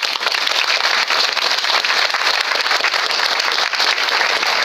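Audience applauding: many hands clapping at once in a loud, steady wash.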